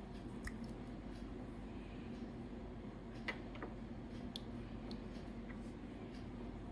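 Scattered light clicks and taps from handling a perfume box and bottle, the sharpest a little past three seconds in, over a steady low hum.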